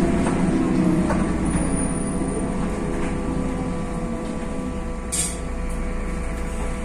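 Mercedes-Benz OM906 LA straight-six diesel of a BredaMenarinibus M240 city bus running, heard from inside the passenger cabin, its note easing down and quietening over the first couple of seconds. About five seconds in comes a brief hiss of compressed air from the bus's air system.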